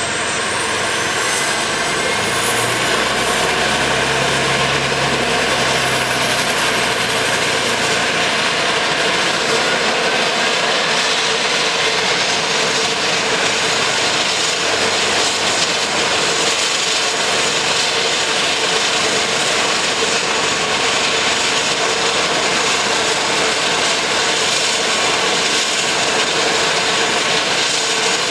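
Beech 1900D's Pratt & Whitney PT6A turboprop engine spooling up during start: a whine rising in pitch over the first couple of seconds, then settling into a steady loud whine as the engine runs with its propeller turning.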